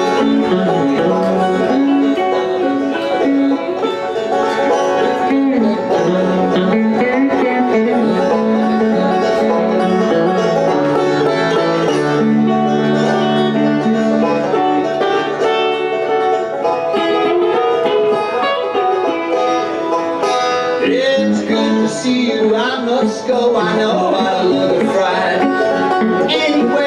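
Banjo and electric guitar playing live together in an instrumental country-bluegrass passage, the banjo picking quick plucked notes over the guitar.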